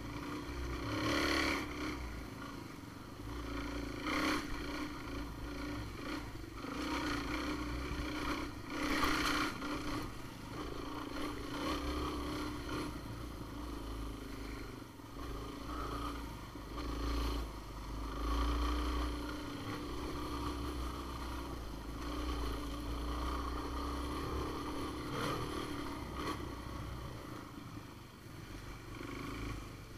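Off-road vehicle engine running steadily at cruising speed on a trail, with brief louder surges every few seconds as the throttle is opened.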